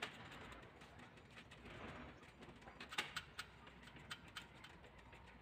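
Faint, scattered clicks and taps of door lock hardware being handled and fitted, with a short cluster of sharper clicks about three seconds in.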